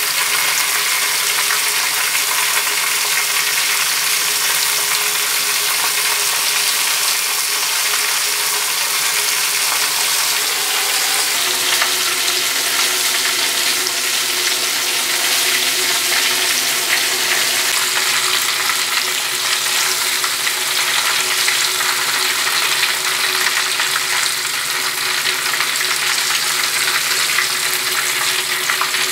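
Battered chicken pieces deep-frying in hot oil, a steady, continuous sizzling hiss.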